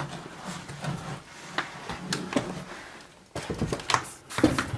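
Scattered knocks and clicks of someone moving through a cluttered room, with a quick run of them about three and a half seconds in and a couple more near the end.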